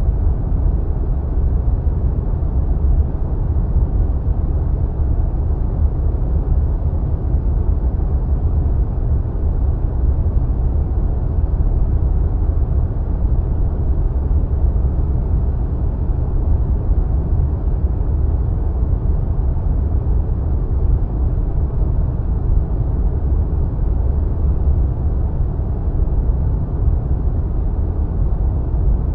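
Wind sound effect: a steady, deep rushing of air, heaviest in the low end, with no gusts or breaks.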